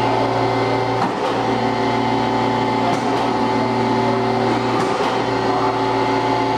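Chevalier FSG-1640AD surface grinder running, a steady hum with several steady tones over it. Faint knocks come about every two seconds.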